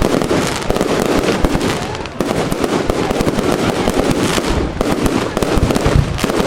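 Fireworks going off in a dense, continuous barrage of rapid crackling bangs, with a heavier low boom near the end.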